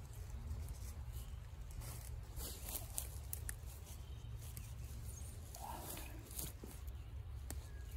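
A wooden digging stick scraping and prying in forest soil and ramp leaves rustling as ramps are dug and pulled up, with scattered sharp clicks and snaps over a steady low rumble.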